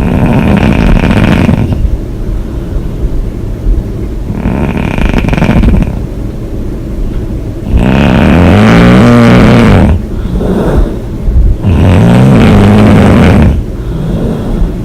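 A woman snoring hard with her mouth open: four long snores about four seconds apart, each with a low pitched tone that rises and falls, the last two the loudest and longest.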